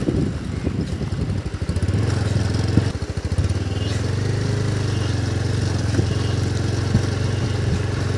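Motorcycle engine running at low, even speed. It is a low drone, rough and uneven at first, that settles into a steady note about two seconds in.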